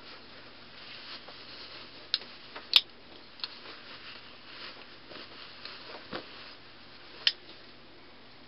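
A terry cloth rag rubbing a metal curling iron dry, with about five sharp clicks as the iron and its spring clamp are handled; the loudest click comes about three seconds in.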